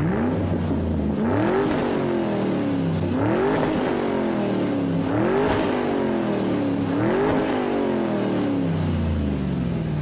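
A car engine revved four times, each rev climbing quickly and then falling away slowly.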